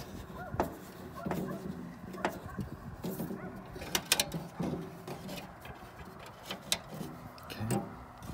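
Scattered light clicks and scrapes of a flat screwdriver working the set screw of the grounding lug on the bare copper ground wire inside a steel meter base, with birds calling faintly in the background.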